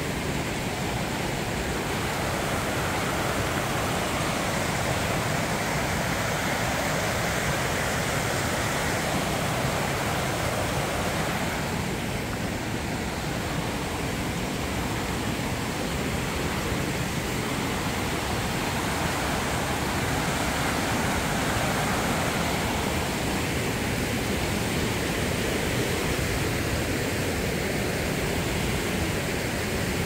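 A creek rushing over rocks in small cascades: a steady, even rush of water.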